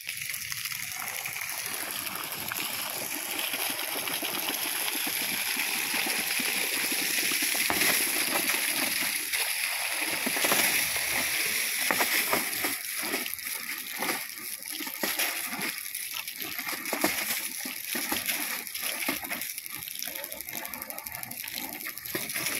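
Water gushing from the outlet of a black plastic pipe fed by a compressor-based borewell pump, splashing onto bare soil. The flow is steady at first and turns more uneven, rising and falling, from about halfway through.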